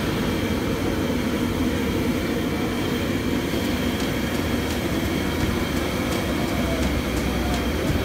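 LPG gas burner running steadily under an inverted-dome rumali roti griddle: a constant low rushing noise.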